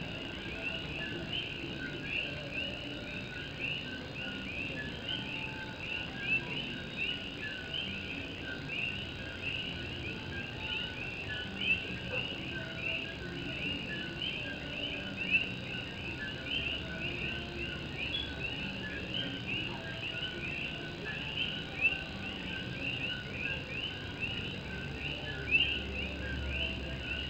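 A dense chorus of common coquí frogs, many overlapping two-note 'co-QUI' calls, each a short low note followed by a quick rising whistle. A few sharp louder taps, drops on a tin roof, stand out here and there.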